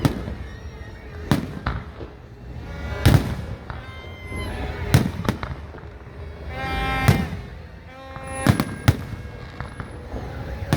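Fireworks going off: a run of sharp bangs and booms, roughly one every one to two seconds, several with a rolling low tail.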